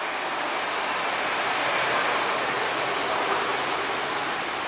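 Steady, even rushing noise of a bus interchange's ambience, with no distinct events standing out.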